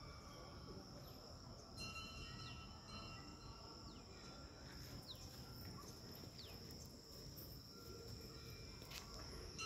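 Faint outdoor ambience of insects buzzing steadily at a high pitch, with a few brief falling chirps in the middle and a low rumble underneath.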